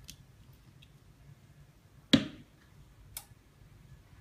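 A few sharp clicks over faint room tone, the loudest about two seconds in.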